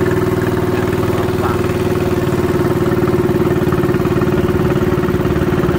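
A small wooden river boat's engine running steadily under way, holding an even, unchanging pitch.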